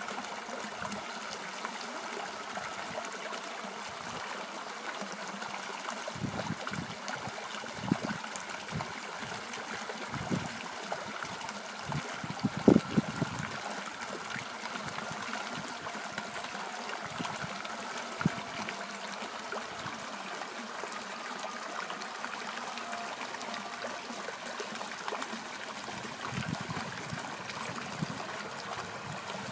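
Running water of a stream trickling and gurgling steadily, with a few brief louder gurgles in the middle, the loudest about halfway through.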